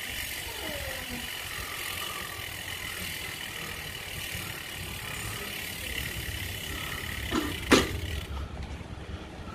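Quiet city street ambience: a low rumble of distant traffic under a steady high-pitched whine. A sharp knock about three quarters of the way in.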